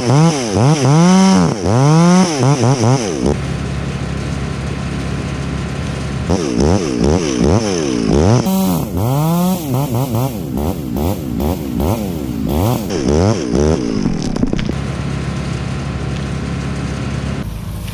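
Chainsaw revving up and down over and over in three stretches, as in a felling cut, over another engine running steadily underneath.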